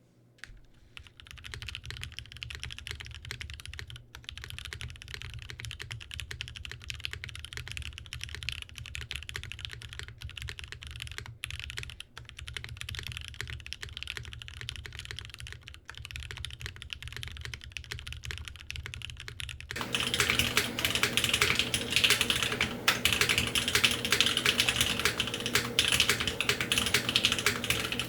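Continuous fast typing on a custom mechanical keyboard with an aluminium plate, lubed Cherry-topped Tealios linear switches and GMK keycaps. About two-thirds of the way through, the recording switches microphones, and the keystrokes become louder and fuller.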